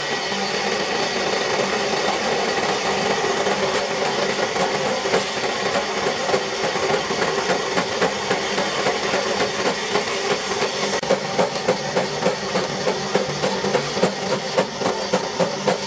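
Small electric chopper machine coming up to speed and running steadily, then chewing through a wooden pole fed into its chute, with rapid regular chopping knocks from the blades that grow denser, to about three a second, near the end.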